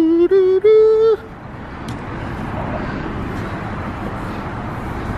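Squeegee's rubber blade squeaking on windshield glass: a few drawn-out squeals that step up in pitch and stop about a second in. A steady background hum follows.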